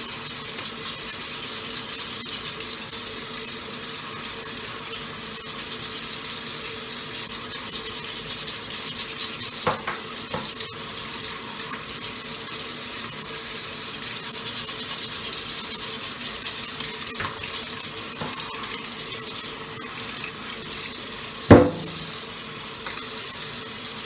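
Kitchen tap running steadily into the sink as a dishwasher filter is rinsed under it, with a few knocks against the sink and one sharp clunk near the end.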